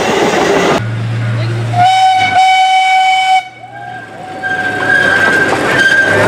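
An Amtrak passenger train rolling past, cut off abruptly about a second in. Then a miniature ride-on train's whistle blows once for about a second and a half over a low steady hum, and a thinner high tone sounds near the end.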